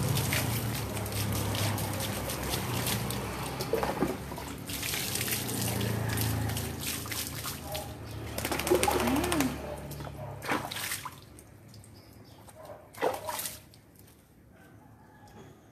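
Water poured from a plastic dipper over a dog, splashing onto a concrete floor, in pours that go on for about eleven seconds. Then it goes quieter, with a few short knocks and splashes.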